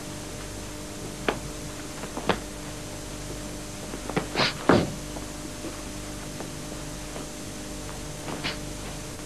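Scattered dull thuds of blows and stepping feet during full-contact sparring: single hits about a second and two seconds in, a quick cluster of three or four around four to five seconds, and one more near the end, over a steady low hum.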